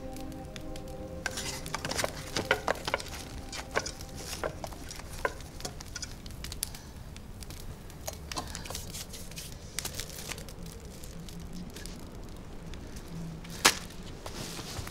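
Open hearth fire crackling and sizzling, with irregular small clicks and knocks from work at the hearth and one sharper, louder click near the end.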